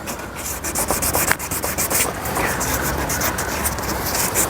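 800-grit wet-and-dry sandpaper rubbed by hand over a plastic headlight lens in quick back-and-forth strokes, a steady scratchy rasp as the yellowed surface is wet-sanded.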